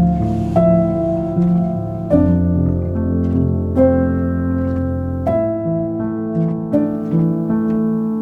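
Background music: plucked or keyboard notes picked out over slow, sustained bass notes.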